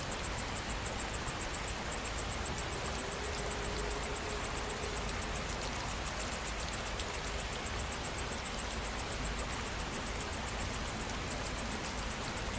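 Steady rain falling, an even hiss, with an insect chirping in a fast, even high-pitched pulse throughout.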